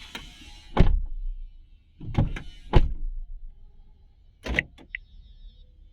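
A series of sharp knocks and thumps, about six over five seconds, with a brief high tone after the last one.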